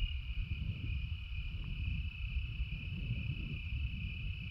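Night insects trilling in one steady high note, over the low rumble of wind on the microphone.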